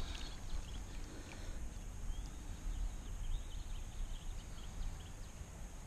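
Faint outdoor river ambience: a low steady rumble with scattered small ticks and short chirps throughout.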